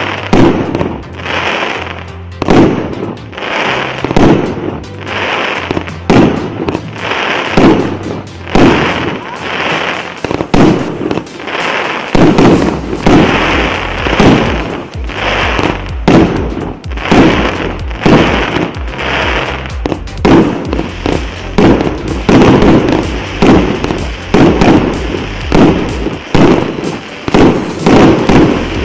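Multi-shot consumer fireworks cake (Richter RBV-2971, 297 shots of 1–1.2 inch) firing its shots one after another, about one to two loud bangs a second, without let-up.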